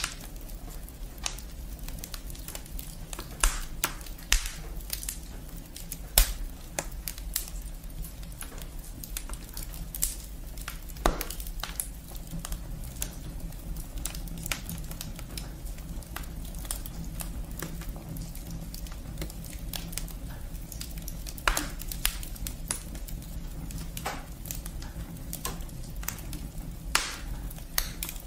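Wood fire crackling in a brick fireplace: irregular sharp snaps and pops from the burning firewood, with a handful of louder pops scattered through, over a steady low rumble.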